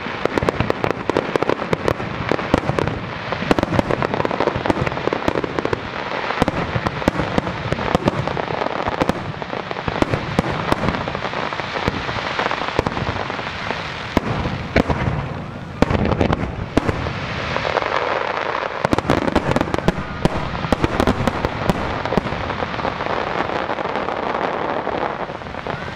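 Fireworks display from barges on a lake: a dense, continuous barrage of overlapping bangs and crackling from shells bursting in the air and low over the water, with a couple of brief lulls.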